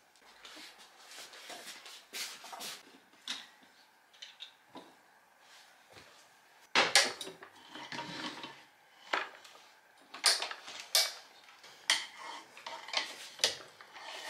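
Irregular clinks, knocks and clatters as a metal table lamp and other furnishings are lifted, handled and moved, with the loudest clatter about seven seconds in.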